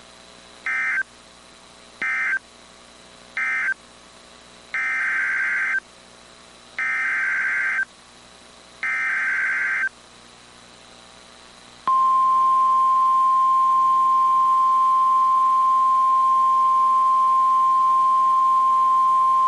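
Emergency Alert System (SAME) data bursts on NOAA Weather Radio. Three short buzzy bursts of digital tones close the previous warning, and three longer bursts about a second each carry the header of the next one. About twelve seconds in, the steady single-pitch weather radio warning alarm tone begins and holds.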